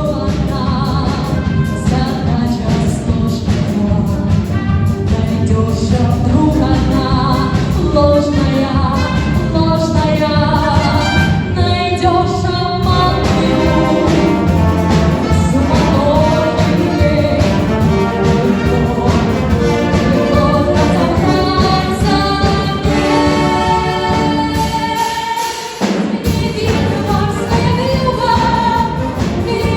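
A song: a sung vocal melody over full instrumental backing. The music briefly drops out about 25 seconds in, then resumes.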